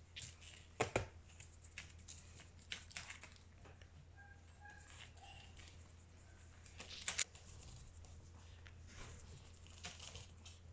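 Faint rustling and handling noises as a Boston terrier puppy is held and turned in a person's hands, with sharp clicks about a second in and again around seven seconds, over a low steady hum.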